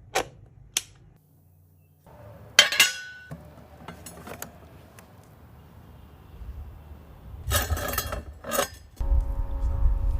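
Hard objects being handled: a few light clicks, a sharp ringing clank about two and a half seconds in, and a run of clattering knocks near the end. In the last second a steady pitched tone with overtones sets in over a low rumble.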